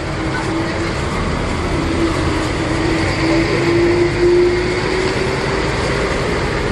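A moving vehicle running: a steady rumble and road noise, with a hum rising slowly in pitch over several seconds as it gathers speed.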